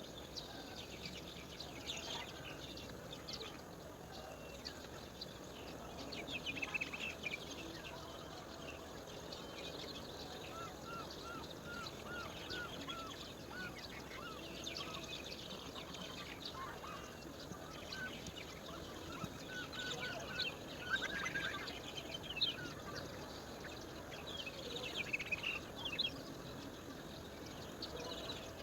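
Wild birds calling and chirping over steady outdoor background noise. The calls come in clusters of short chirps, with a run of short, evenly repeated notes, about two or three a second, partway through.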